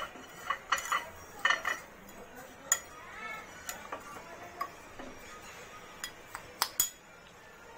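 Metal spoon clinking and scraping against a plate as a soft mixture of fried onions, ghee and milk is stirred. The taps are scattered, with several close together near the end.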